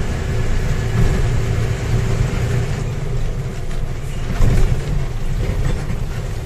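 Steady low rumble of a lorry's engine and tyres on the road, heard from inside the cab while driving. A brief louder jolt comes a little past the middle.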